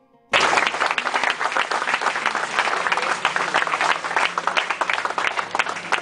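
A group of people applauding, which cuts in abruptly a moment after a few plucked-string notes die away.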